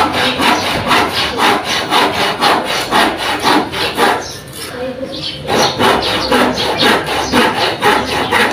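Handsaw cutting through a wooden stud: rapid, even back-and-forth strokes, about three a second, with a pause of about a second near the middle before the sawing starts again.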